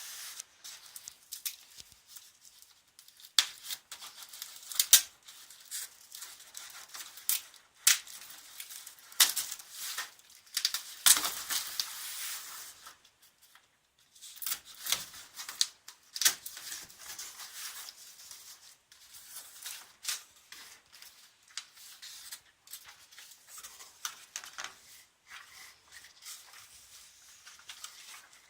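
Packaging being handled and opened by hand: irregular rustling, tearing and sharp clicks of cardboard and plastic wrapping, with a short pause a little past halfway.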